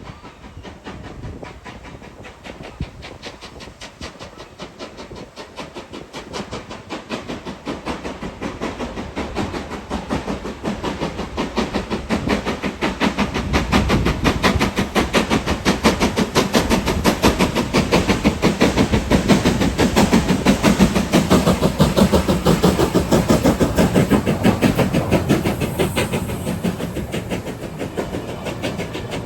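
LNER B1 4-6-0 steam locomotive working hard from low speed after a signal check, regulator open. Its exhaust gives a fast, even run of chuffs that grows steadily louder as it approaches, then eases a little near the end as it passes.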